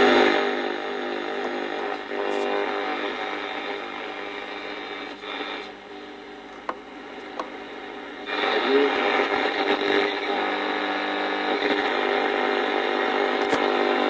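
Small portable AM radio's speaker putting out hiss and interference with steady whistling tones while the AM dial is tuned, with no station found. The noise drops quieter for a few seconds midway, with a couple of faint clicks, then comes back up.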